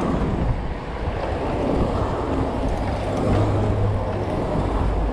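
Steady wind rush over the microphone of a moving bicycle, with a low road rumble underneath.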